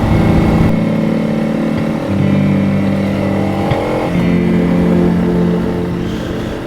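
Honda CRF300 Rally's single-cylinder engine running under way, holding steady revs and stepping to a new pitch a few times.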